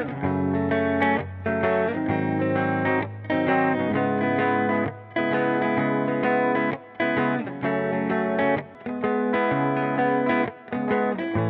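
Background music: a distorted electric guitar track with chords changing every second or so.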